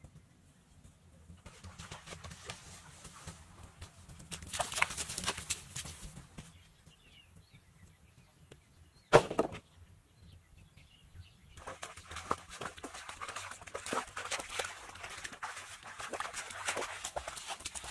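Bamboo poles dropped onto a pile with one sharp wooden clack about nine seconds in. Around it, footsteps and rustling through grass and weeds, becoming dense and crackly near the end.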